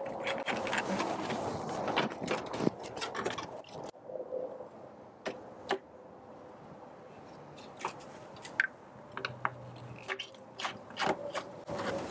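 Cold air intake tubing and airbox being worked loose by hand with a screwdriver, rubbing and scraping for the first few seconds, then quieter, with scattered clicks and knocks.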